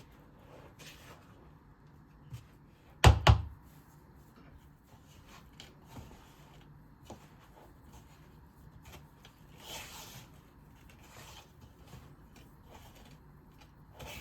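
Quiet kitchen handling sounds: scattered small clicks and taps, with one loud double knock about three seconds in and brief soft rustles later on.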